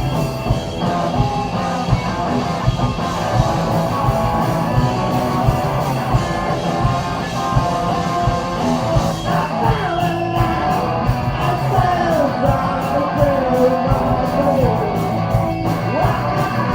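A live rock band playing loud and steady, with guitar, bass and drums. In the second half a melody line slides up and down in pitch over the band.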